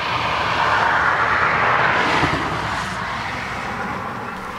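A vehicle passing by: a rushing noise that builds to a peak about two seconds in and then fades away.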